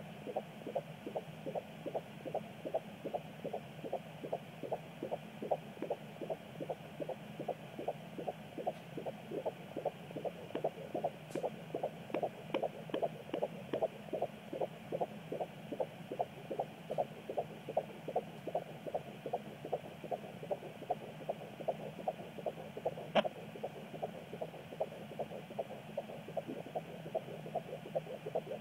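Fetal heartbeat through a pocket fetal Doppler's speaker: quick, even pulses at about 150 beats a minute, about two and a half a second, over the probe's steady hiss, a normal rate for a 16-week baby. Late on, a single sharp knock cuts through, the baby kicking against the probe.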